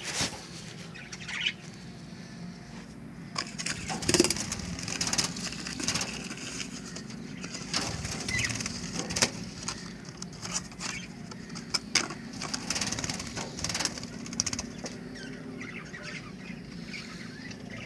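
Caged budgerigars (Australian parrots) fluttering their wings, with scattered short high chirps and repeated sharp clicks.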